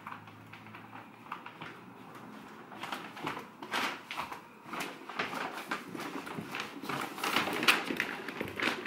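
Footsteps coming down carpeted stairs, with scattered knocks and thuds that start a couple of seconds in and grow louder and more frequent toward the end.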